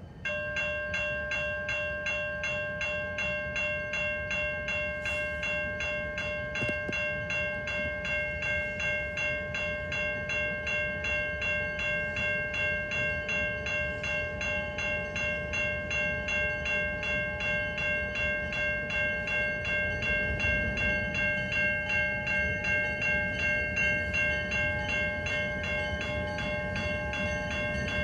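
Railway level-crossing warning bell starting suddenly and ringing rapidly and steadily as the crossing activates. A low rumble from an approaching CN diesel locomotive running light grows louder about two-thirds of the way through.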